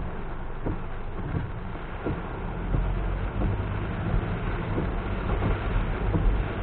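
A car driving in heavy rain: a steady low road and engine rumble with scattered light taps of rain hitting the car. The rumble grows louder about three seconds in.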